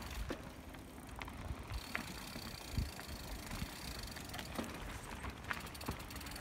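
Mountain bike rolling down a dirt and rock trail: a steady rolling noise of tyres on dirt, with scattered knocks and rattles as the bike goes over bumps.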